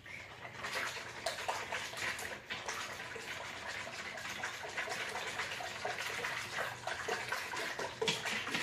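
Runny pudding mixture being stirred quickly by hand in a large bowl: fast, irregular sloshing and swishing of the liquid with the utensil.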